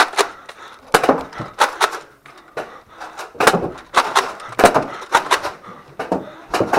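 Nerf Rival Apollo blasters firing, with foam balls knocking against hard surfaces: a rapid, irregular string of sharp pops and knocks, several in quick pairs.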